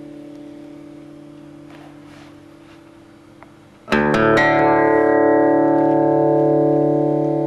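Guitar music: a held chord slowly fades, then about four seconds in a new chord is struck loudly and rings on.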